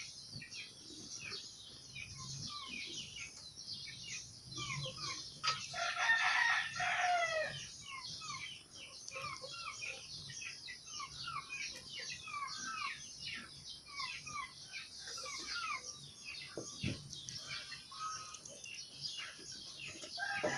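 Small birds chirping continually, with a rooster crowing once about six seconds in.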